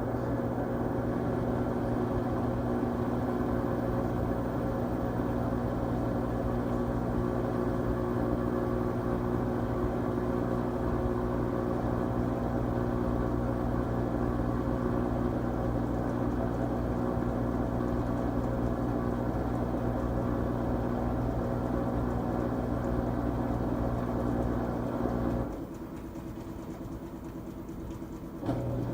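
LG Tromm WD-CR101C drum washing machine running its quick-wash cycle, its drum motor giving a steady hum. About 25 seconds in, the motor stops for about three seconds and then starts again.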